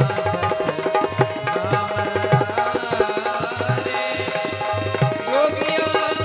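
Instrumental accompaniment of a devotional bhajan: tabla plays a fast rhythm, with some bending low drum notes, over a steady held melodic note.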